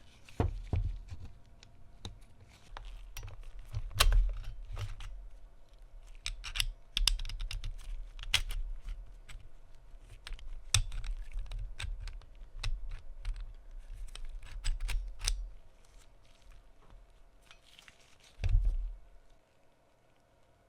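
Small steel parts of a Colt Model 1908 pistol being handled on a workbench: irregular sharp metallic clicks and taps with dull knocks, the loudest about four seconds in and a heavy thump near the end.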